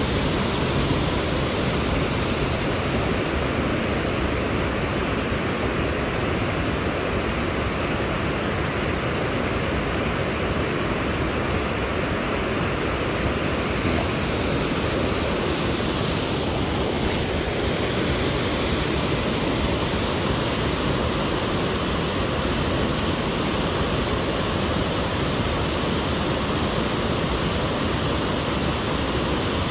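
Steady rushing of water spilling over a low weir on a stream.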